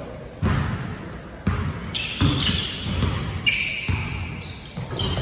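Basketball dribbled on a hardwood gym floor, an irregular run of thuds that echo around a large hall, with brief high squeaks of sneakers on the court in between.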